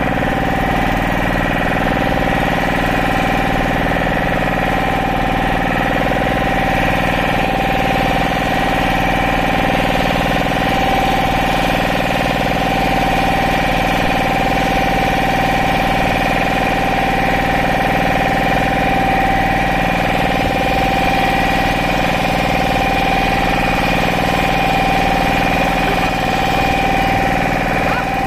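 Engine of a wooden motorboat running steadily under way, a loud, constant drone.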